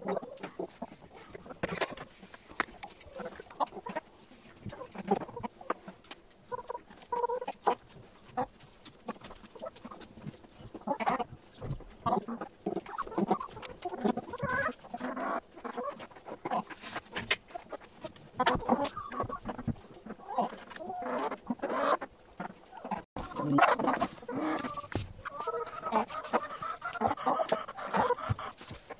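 A flock of hens clucking continuously as they crowd to feed, with scattered sharp taps among the calls, which fit beaks pecking at a feed bucket.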